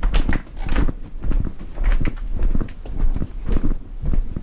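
Footsteps on loose river-rock gravel at a walking pace, each step a short crunch of stones, with a low rumble underneath.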